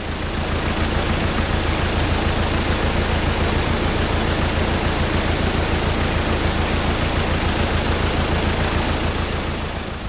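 Loud, steady rushing hiss like static or roaring wind, with a deep rumble underneath. It swells in over the first second and fades away near the end.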